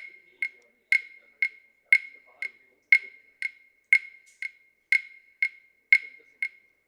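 Regular ticking, about two sharp clicks a second, alternating loud and soft like a tick-tock, each with a short high ringing tone.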